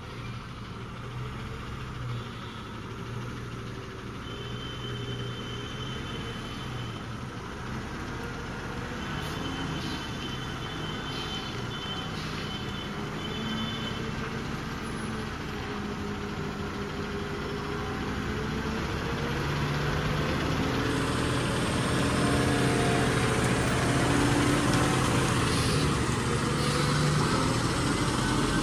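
Diesel engine of a heavily overloaded multi-axle lorry labouring up a steep hairpin bend, its pitch wavering as it pulls, getting steadily louder as the truck draws near.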